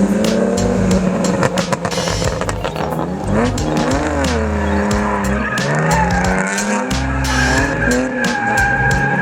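Drift cars sliding, engines revving up and down with tyres squealing, over music with a steady beat.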